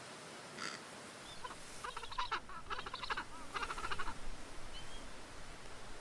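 King penguins calling: a few short, rapidly pulsed trumpeting calls about two to four seconds in, over a steady background hiss.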